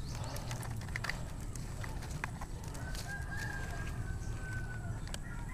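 A rooster crowing: one long, held call about three seconds in, and another beginning near the end, over scattered clicks and rustling.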